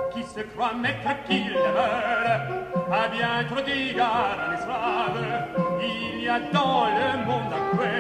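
Contemporary orchestral music with an operatic voice singing in short phrases with wide vibrato over held orchestral notes.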